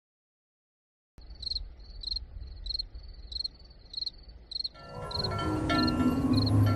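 A cricket chirping at a steady pace, a little under two chirps a second, over a low hum, starting abruptly about a second in. From about five seconds in, music fades in with held tones and chimes and grows louder than the cricket.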